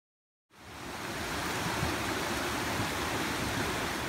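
Steady rushing of a mountain creek, fading in about half a second in.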